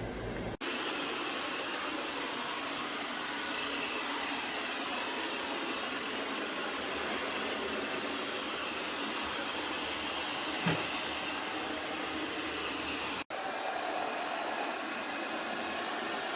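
Kilgone robot vacuum cleaner running, a steady hiss of its suction motor and brushes, with one short low thump about ten seconds in.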